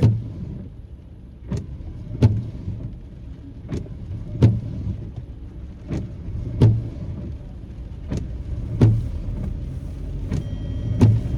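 Windshield wipers sweeping back and forth in a car in the rain: a pair of knocks about every two seconds, five pairs in all, over the car's steady low rumble.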